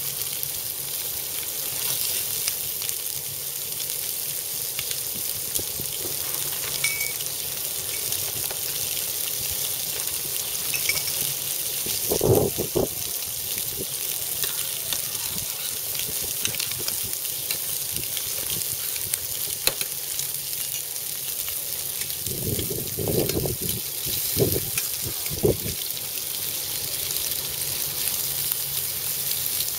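Shrimp sizzling steadily in hot olive oil in a stainless-steel frying pan. A few short knocks come partway through.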